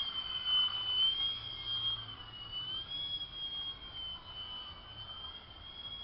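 Scratch-built 3D Troll RC biplane's motor and propeller in flight: a high, steady whine that slowly wavers up and down in pitch.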